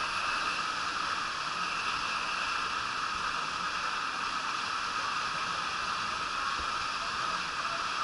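Steady rush of water flowing down a water slide, with no let-up or change.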